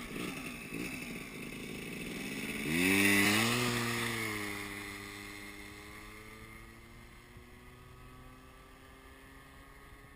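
Yamaha Jog R 50cc two-stroke scooter pulling away at full throttle. Its engine note rises sharply about two and a half seconds in, then fades and slowly drops in pitch as the scooter rides off into the distance.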